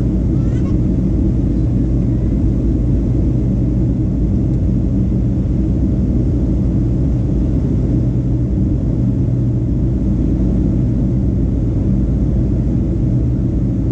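Steady cabin drone of a Boeing 737 in flight, the jet engines and rushing airflow heard inside the cabin through the fuselage, with a constant low hum.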